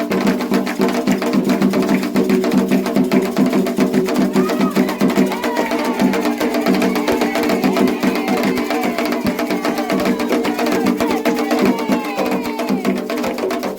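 Candomblé ritual music: fast, dense atabaque drumming with a bell-like percussion part keeping time, under steady singing. From about four seconds in, higher wavering voices join.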